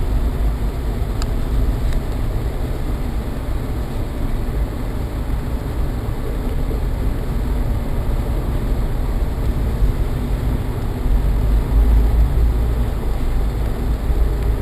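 Road and engine noise inside a moving car's cabin: a steady low rumble that grows louder late on.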